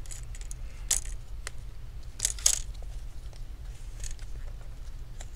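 Thin metal pry tool scraping and clicking against the edge of an MSI GF65 laptop's screen bezel as it is worked under a bezel held on by double-sided tape. There are a few sharp clicks, the loudest a pair about two and a half seconds in.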